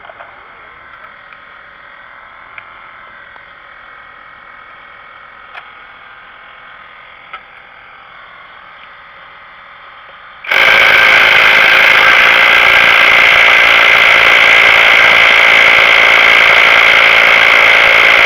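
A loud power tool runs steadily for about eight seconds, starting about ten seconds in and cutting off suddenly. Before it there are only a few faint clicks.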